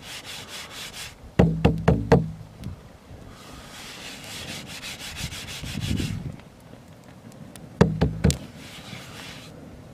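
Shaman frame drum with a natural hide head, tapped by hand in two short runs, about five strokes and then three, each with a low ring: the player testing the tone while the slack skin is being warmed over a wood fire to tighten it. A soft rubbing hiss fills the gap between the runs.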